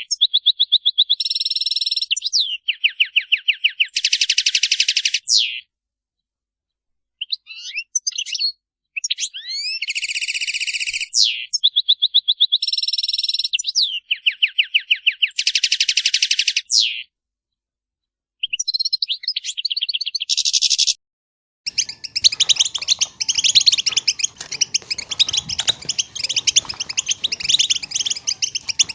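European goldfinches calling: quick twittering chatter and trills, with short gaps of silence and the same sequence of calls repeated. About 22 s in it gives way to a dense, continuous chorus of many goldfinches twittering together.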